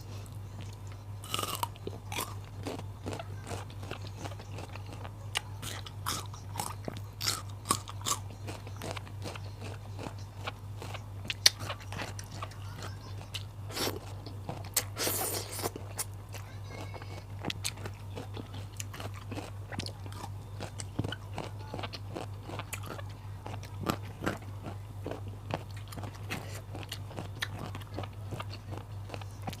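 Close-miked chewing and crunching of raw vegetables: many short crisp bites and chews, with a longer, louder crunch about halfway through.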